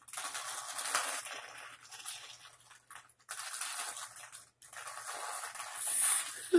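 Wet, squishy rustling of hands rubbing chocolate drink into soaked hair as it dribbles from a carton; the noise cuts out abruptly twice for an instant.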